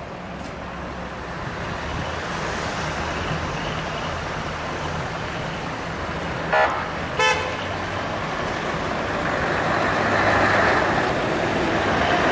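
Steady vehicle engine and traffic noise, with two short horn toots about half a second apart a little past halfway; the engine noise grows louder near the end.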